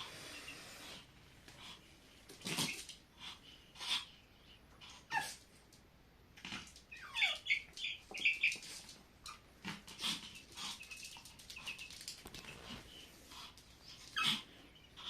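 Young chicks peeping in short high calls, mixed with scattered scratchy rustles and clicks as a puppy and the chicks move about.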